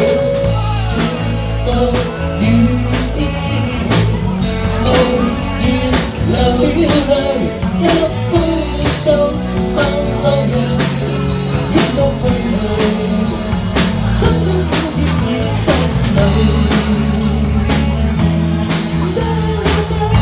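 Live band playing a pop-rock song: drum kit keeping a steady beat under bass, with a sung melody over it.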